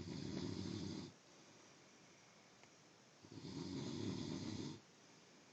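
A person snoring: two long, rattling snores, the first ending about a second in and the second starting about three seconds in and lasting about a second and a half.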